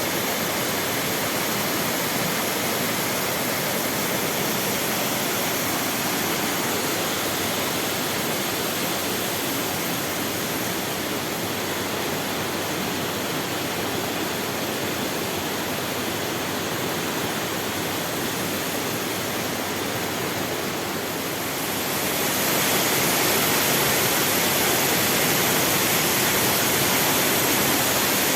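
Waterfall: a steady rush of falling water that gets louder about three quarters of the way through.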